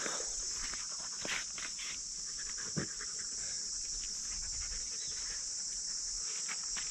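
Insect chorus: a steady, high-pitched buzz that carries on without a break, with light footsteps and rustles on dry ground now and then.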